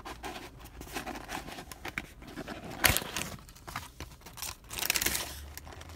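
A McDonald's Quarter Pounder's paper packaging being opened and handled: irregular crinkling and rustling with scattered clicks, a sharp crack about three seconds in and a longer rustle near the end.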